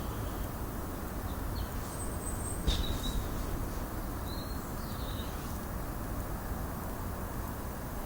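Steady low background rush with a few short, faint bird chirps between about two and five seconds in, and one brief click just before three seconds.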